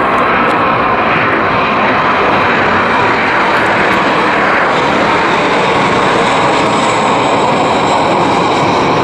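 Airliner engines, loud and steady as the aircraft passes close by.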